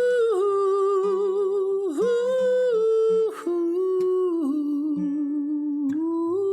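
Wordless vocal melody, long held notes with vibrato gliding from pitch to pitch, over acoustic guitar.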